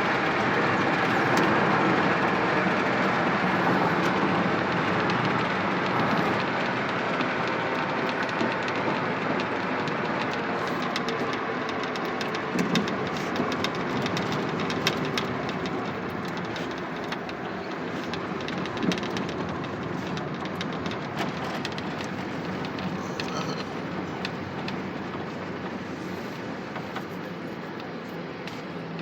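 Loaded truck on the road: steady engine and road noise with scattered light rattling clicks, slowly getting quieter toward the end.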